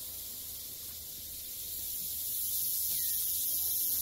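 A steady high-pitched hiss that grows louder about two and a half seconds in, with faint voices in the distance.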